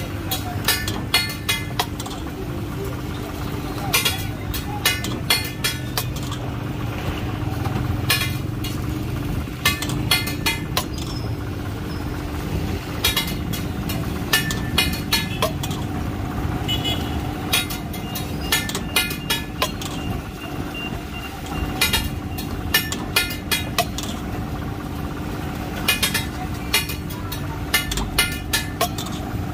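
Metal spatula clanging on a flat iron griddle in quick runs of several strikes, repeated every few seconds, over a steady hum of street traffic.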